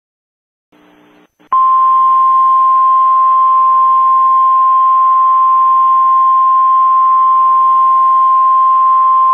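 Emergency Alert System attention tone: a single loud, steady, high beep-like tone that starts suddenly about a second and a half in, after a moment of silence and faint hiss, and holds without a break, signalling that an alert message follows.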